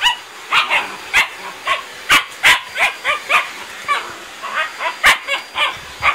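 Shiba Inu barking and yipping in a rapid string of short, sharp barks, about three a second.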